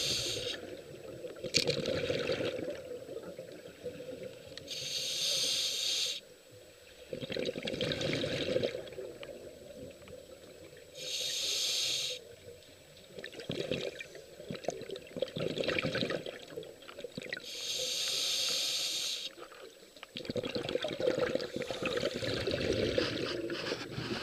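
Scuba diver breathing through a regulator underwater: a short hiss as each breath is drawn, then a few seconds of bubbling as the exhaled air escapes, three breaths in all, roughly every six to seven seconds.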